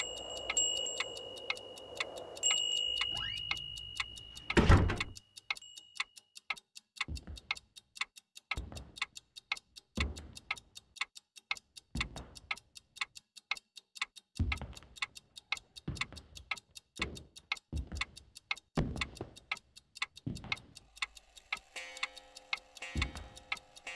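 Clock ticking quickly and evenly, about five ticks a second, with heavier low knocks every second or two. A high steady ringing tone sounds over the first few seconds, and one loud knock comes about five seconds in; near the end, low held tones come in.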